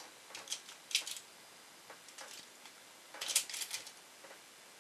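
Light clicks and rustles of small tools and items being handled on a hobby workbench: a few scattered taps, with a short cluster about three seconds in.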